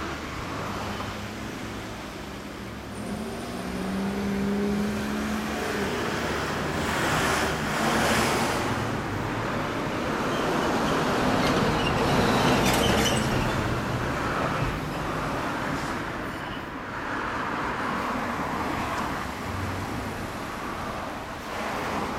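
Street traffic going by, with motor vehicles passing. The sound swells and fades twice, loudest about eight seconds in and again around twelve to thirteen seconds.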